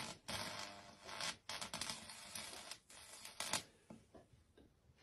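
Electrical arcing at live circuit breakers in a distribution panel: several bursts of crackling hiss as a wire touches the terminals, dying away after about three and a half seconds.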